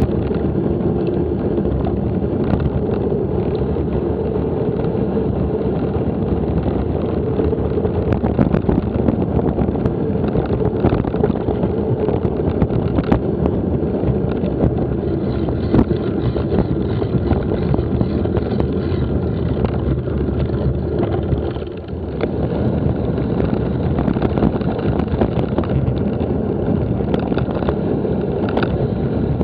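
Steady rumble and wind buffeting on an action camera's microphone while mountain biking, with many small knocks and rattles from the bike running over rough ground. The noise dips briefly about two-thirds of the way through, then carries on.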